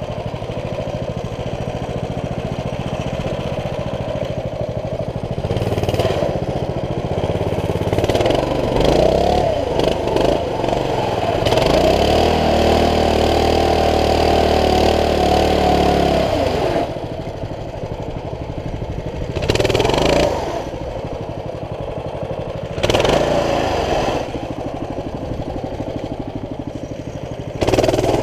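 CT200U mini bike's small single-cylinder four-stroke engine revving up and dropping back again and again, held at high revs for a few seconds in the middle, with short throttle blips near the end.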